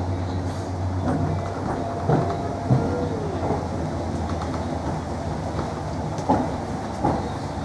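Inside a Class 321 electric multiple unit on the move: a steady low hum of the traction equipment under rail and running noise, with several sharp knocks from the wheels over the track.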